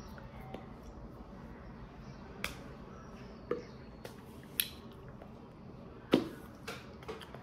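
Hands slapping and tapping against each other during sign language: about half a dozen short, sharp claps, the loudest about six seconds in, over a faint room hum.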